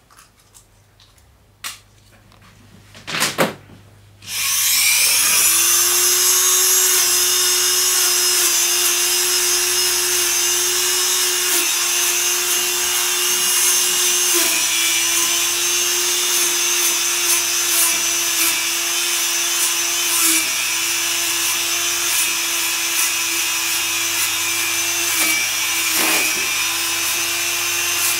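Dremel rotary tool fitted with a small bristle brush, switched on about four seconds in after a few handling clicks, then running steadily at high speed with a high whine whose pitch dips briefly now and then. It is brushing the old graphite-and-tallow residue off the repetition lever springs of a grand piano action.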